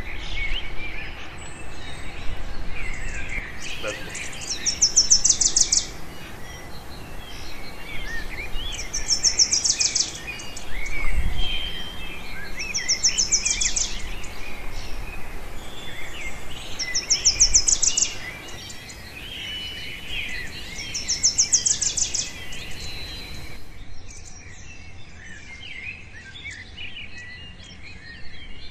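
Birds chirping, with one bird repeating a short, rapid high trill five times about every four seconds. Near the end the background turns quieter while the chirping carries on.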